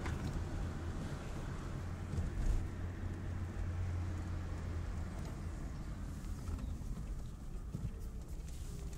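Volkswagen Golf Mk2 running: a steady low rumble, with a brief louder moment about two and a half seconds in.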